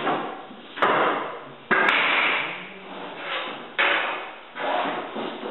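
Loose hardwood flooring boards knocking and clattering as they are laid down and shifted into place while racking out a floor: four sharp wooden knocks, each trailing off over most of a second.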